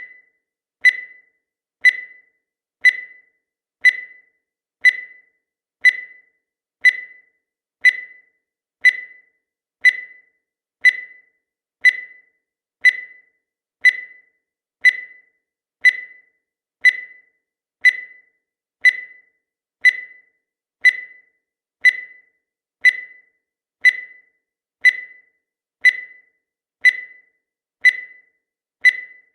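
Countdown timer sound effect: a short, high beep once every second, each starting sharply and fading quickly, marking off the seconds in an even rhythm.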